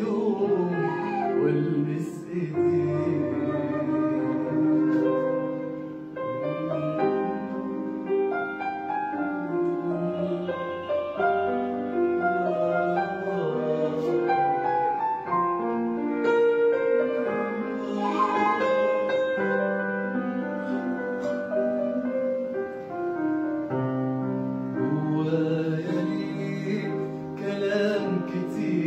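A man singing an Arabic song to instrumental backing, with many held, changing notes.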